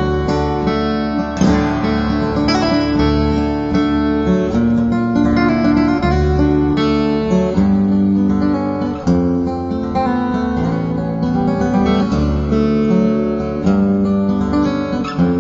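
Background music: acoustic guitar playing.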